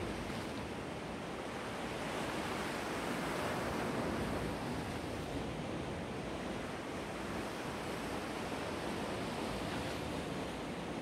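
Sea waves washing onto the shore in a steady wash that swells and eases slowly.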